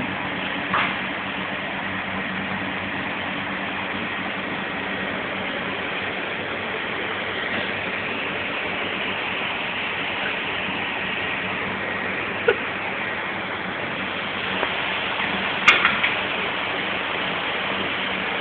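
Steady commercial-kitchen machinery noise, an even rushing hum, with a few brief clicks.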